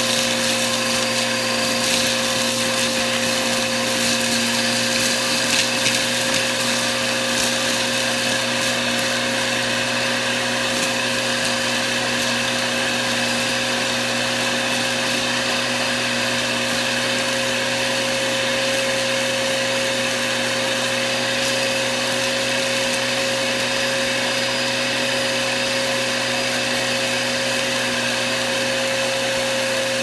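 Bissell upright vacuum running steadily through its hose attachment, a steady motor whine with bits of crunchy debris crackling and rattling up the hose in the first several seconds.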